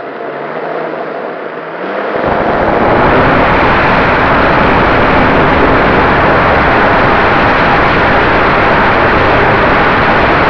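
RC model Cessna 188's motor and propeller heard from a camera mounted on the plane: the sound swells about two seconds in as the throttle opens, then holds a loud, steady rush with wind buffeting the microphone.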